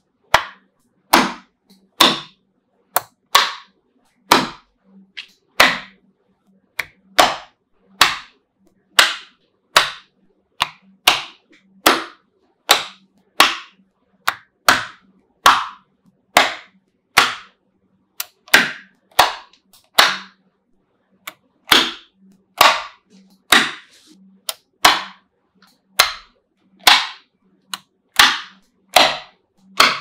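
Small blocks of neodymium magnetic balls snapping down onto a slab of the same balls, one sharp clack about every second.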